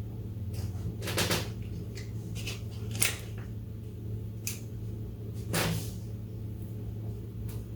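Kitchen handling noises: a few short knocks and scrapes, with one sharp click about three seconds in, over a steady low hum.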